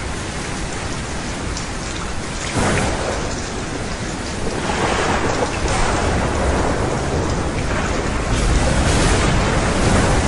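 Steady heavy rain with thunder: a sudden crack about two and a half seconds in, then a long swell of rumbling thunder from about halfway through.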